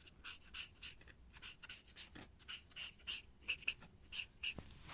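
Broad tip of a marker pen rubbing on paper in short, quick colouring strokes, about three to four a second, faint.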